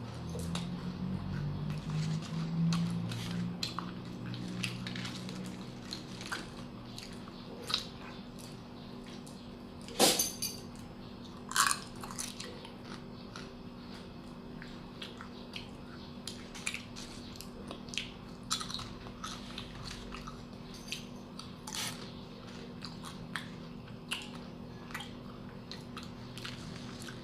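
Crunchy chewing and biting of fried banana chips, many small sharp crunches at an uneven pace, with two louder sharp snaps about ten and eleven and a half seconds in.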